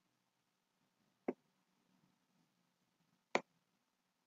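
Two sharp, single computer mouse clicks about two seconds apart, with only faint room noise between them.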